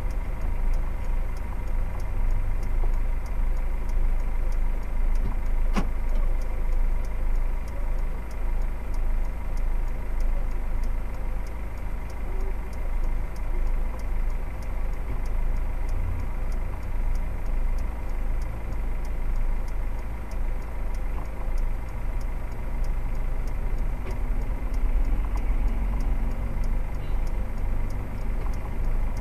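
Steady low rumble of a vehicle engine idling while stopped in traffic, heard from inside the cab.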